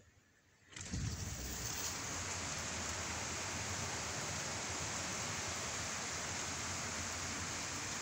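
Heavy rain pouring down steadily, cutting in suddenly about a second in.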